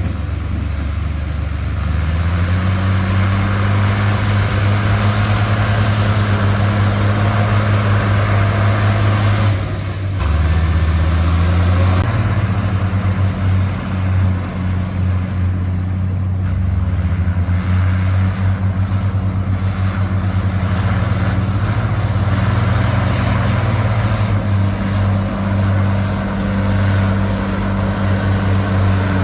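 Komatsu crawler bulldozer's diesel engine running under load, its engine speed rising and falling several times, with a steady noisy clatter over it.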